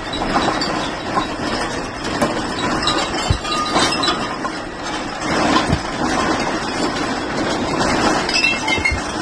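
Earthquake shaking: a continuous loud rattle and rumble with glass and other objects clinking and knocking throughout.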